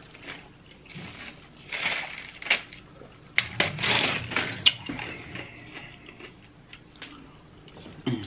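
A fork clinking and scraping on a plate while eating: a few sharp clicks between two short stretches of scraping.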